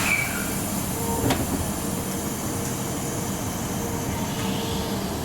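Fukuoka City Subway 1000N series train pulling away and running, heard inside the car: a steady rumble and hiss with faint steady motor tones, and a single clunk about a second in.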